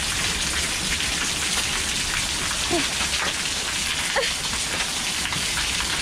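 Heavy rain pouring down steadily on a concrete patio, with runoff spilling off the roof edge and splashing onto the concrete.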